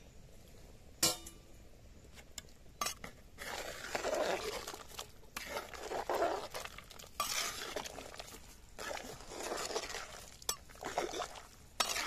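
A metal ladle stirring soup in a large pot: repeated swishing sweeps through the broth, with sharp clinks of the ladle against the pot, the loudest about a second in.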